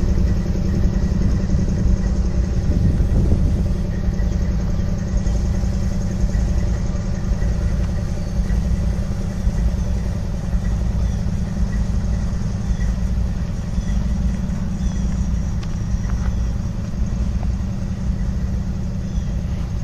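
Diesel-electric freight locomotives idling at rest, the nearest a Norfolk Southern SD70M-2 with its EMD 710 V16 diesel: a steady low rumble and hum that fades slightly towards the end.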